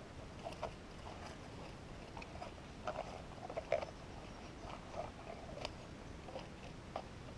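Minelab GPX 5000 metal detector with a small Sadie coil giving short, faint target signals as the coil is swept back and forth over dug soil, pinpointing a shallow target, with a few light clicks of the coil brushing dirt and twigs.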